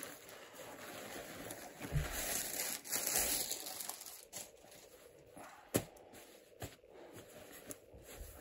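Rustling and swishing of a quilted nylon down jacket being unfolded and spread out on a bed, loudest over the first few seconds, then quieter smoothing by hand with a couple of sharp ticks.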